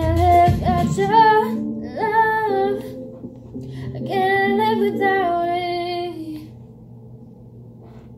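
A woman singing long held notes into a handheld microphone over a backing track whose bass drops out about a second in. Her voice stops about six and a half seconds in, leaving only a faint hum.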